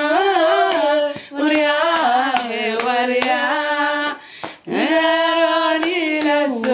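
Unaccompanied Somali song: a man and a woman singing long, wavering held notes, with hand claps keeping time. There is a short break between phrases about four and a half seconds in.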